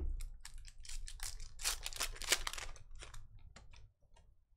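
Foil trading-card pack wrapper crinkling and crackling as it is handled and torn open, busiest in the middle and stopping about four seconds in.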